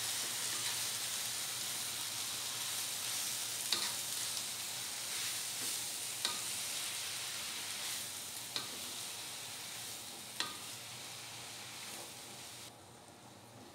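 Water spinach sizzling as it is stir-fried in a nonstick wok with a little water, with a steady hiss. A wooden spatula knocks sharply against the pan four times as the greens are turned. The sizzle fades gradually, then drops away sharply near the end.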